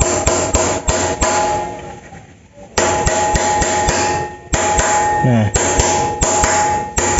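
A hammer tapping a steel hex key laid across a bicycle headset cup, driving the upper cup into the head tube. The metal strikes come quickly, about three a second, with a ringing metallic tone. They pause for over a second near the start, then resume.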